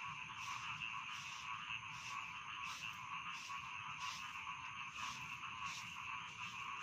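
Chorus of rice-paddy frogs croaking steadily, with a sharper, higher call repeating about twice a second over the dense din.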